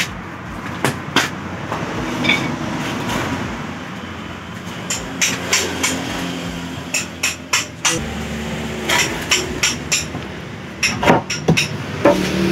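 Hammer blows on a wooden door frame, knocking its corner joints together: irregular sharp knocks coming in clusters, with pauses between them.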